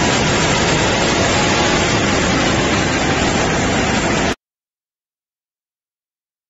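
Steel belt pastille cooler line running in the plant: a loud, steady machine noise that cuts off suddenly about four seconds in.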